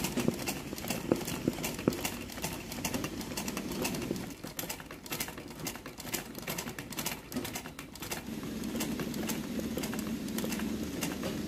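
Sewing machine running for freehand embroidery, its needle clattering in rapid strokes as the hooped fabric is moved under it. It runs quieter for a few seconds in the middle, then picks up again.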